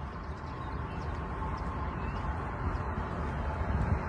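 Outdoor background noise: a low, uneven rumble with a faint steady hum above it, growing slightly louder.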